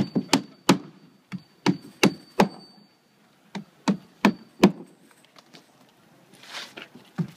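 Hammer driving roofing nails through laminated asphalt shingles into a plywood deck: sharp blows at about three a second in two runs with a short pause between. A softer rustling scrape comes near the end as the next shingle is handled, then the hammering starts again.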